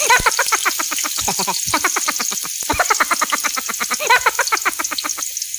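Sliced ginger sizzling in hot oil in a wok: a steady high hiss. Over it, an animal calls in quick pulsed bursts, several a second, and these stop about five seconds in.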